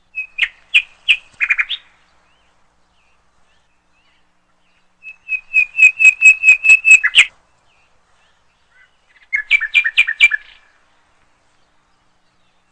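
A songbird singing three short phrases of rapid repeated chirps, a few seconds apart.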